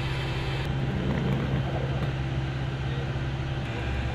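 Steady low engine drone with a constant hum under it, typical of running machinery on a flight line; the hiss above it drops off abruptly about two-thirds of a second in.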